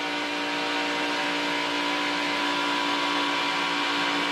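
NASCAR Truck Series V8 engine running near flat-out at about 7,600 rpm on a qualifying lap, heard from inside the truck's cab. It is a steady high-pitched drone that holds an even pitch, mixed with wind and road noise.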